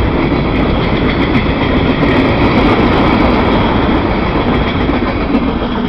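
Freight train cars rolling past: covered hoppers followed by double-stack container cars, their steel wheels running loudly on the rails.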